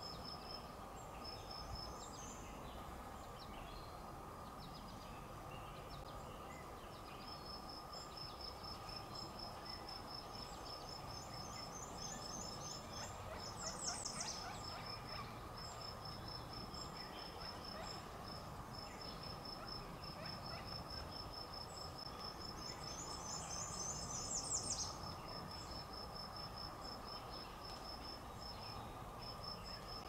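Insects trilling steadily in a quick even pulse, with two short rapid series of bird notes climbing in pitch, about 13 and 24 seconds in.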